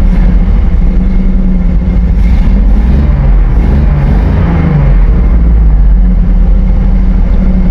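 Car engine running loudly, its revs rising and falling a few times around the middle.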